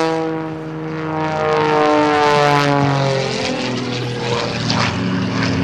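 Extra 300S aerobatic plane's Lycoming engine and MT propeller droning in flight. Its pitch slides down from about halfway through.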